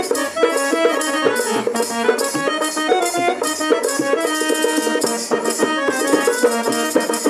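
Instrumental interlude of a Bengali devotional folk song: a stepping melody over a steady, evenly spaced percussion beat, with no singing.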